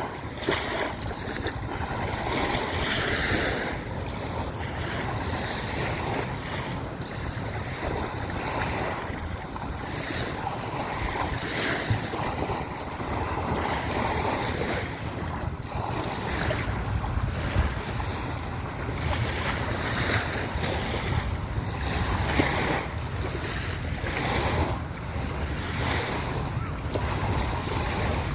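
Small river waves washing in over and over onto a sandy beach, swelling and easing every few seconds, with wind buffeting the microphone.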